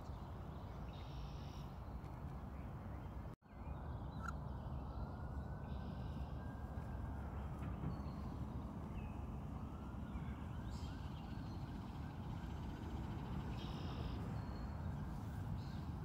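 Steady outdoor background rumble with faint bird calls a few times. The sound drops out completely for a moment a little over three seconds in.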